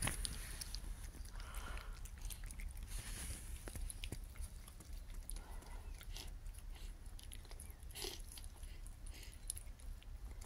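Two kittens chewing and licking food from dishes: a run of small, irregular clicks and smacks.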